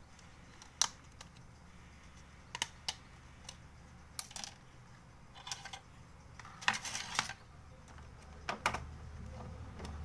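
Irregular small plastic clicks and taps as a phone's black plastic midframe is unclipped and lifted off and parts and tools are set down on the bench, with a quick flurry of clicks about seven seconds in.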